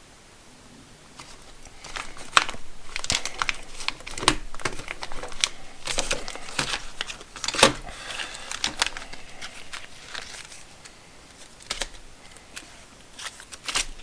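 Plastic packaging crinkling and rustling in irregular bursts as small packs of nuts and bolts are handled and sorted.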